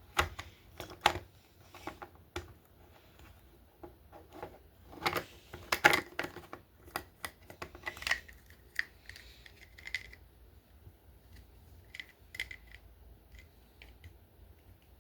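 Hands opening a small toy blind pack: irregular clicks, taps and rustles of packaging being handled, busiest in the first half.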